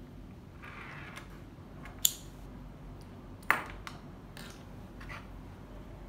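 Buckle on a waka C12 camera shoulder strap clicking sharply twice, about a second and a half apart, with soft rustling of the strap being handled.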